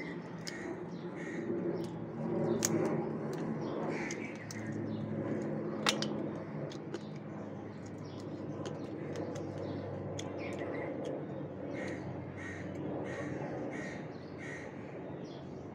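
Crows cawing over and over, with close chewing and a few sharp clicks from eating chicken lollipop off the bone, the loudest click about six seconds in. A steady low hum runs underneath.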